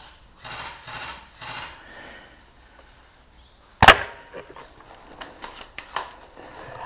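A single loud, sharp airsoft gun shot about four seconds in, with a brief ring after it. Three short rustles come before it, and scattered light clicks and scuffs follow.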